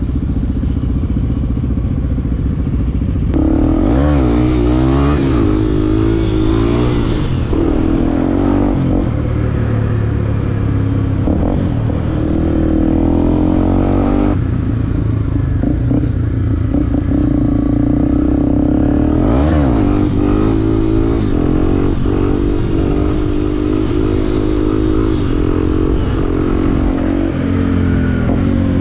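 Motorcycle engine under way, its pitch climbing and dropping repeatedly as the rider accelerates and changes gear, with abrupt shifts about 3 s in, around the middle and again about two-thirds through.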